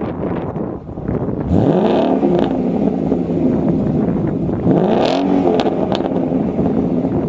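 2015 Ford Mustang GT's 5.0-litre Coyote V8 breathing through Roush axle-back mufflers, idling and revved twice. The first blip comes about a second and a half in and the second around five seconds in, each rising in pitch and falling back to idle.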